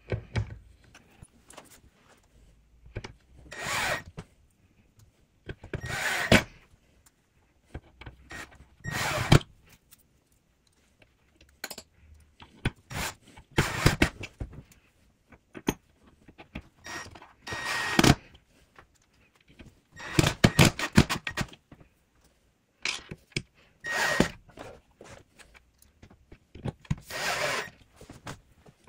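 Cordless drill-driver driving screws into a drawer front in short bursts every few seconds, its motor whining up with each screw, with small clicks and knocks of handling between.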